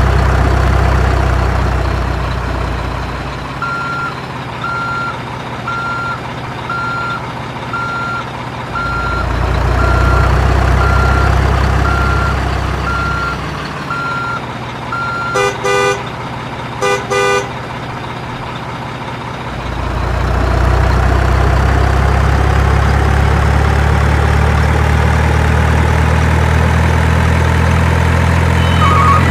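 Truck engine rumbling and swelling in waves, with a steady reversing beep about once a second for several seconds, then two short horn toots.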